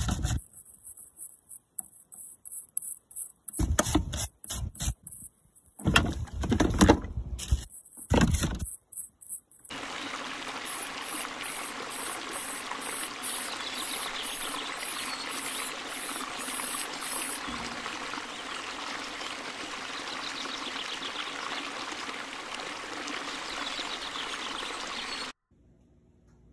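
Short, choppy bursts of a brush scrubbing a bicycle wheel hub in soapy water. After that, a steady scraping noise of hand work on a bicycle frame tube runs for about fifteen seconds and cuts off near the end.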